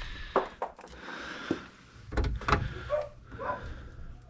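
Several short sharp clicks and knocks with some rustling as the condensate pump's vinyl drain tubing is handled and worked with a hand tool, over a low steady hum.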